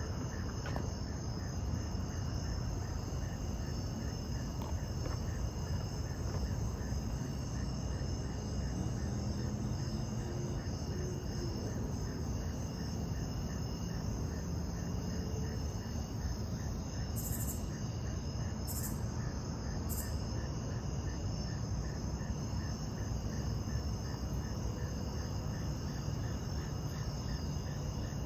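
Steady night chorus of crickets and other insects: several high trills layered together, with a fast even pulsing beneath them, over a low steady background noise.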